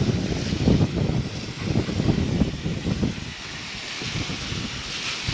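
Wind buffeting the microphone outdoors: an uneven, gusting low rumble with a faint hiss above it.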